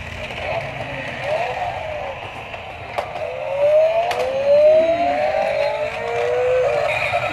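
Battery-operated light-up toy motorcycles playing electronic siren and engine sound effects through a small speaker: quick up-and-down wails, then long rising glides like revving from about three seconds in, with a couple of sharp clicks as the toy is handled.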